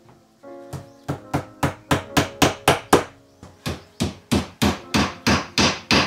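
Claw hammer nailing a bookshelf's thin hardboard back panel in place, with quick, even blows of about four a second and a short pause near the middle.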